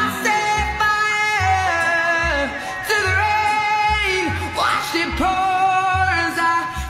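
Background pop song with a singing voice over a steady bass beat of about two thumps a second.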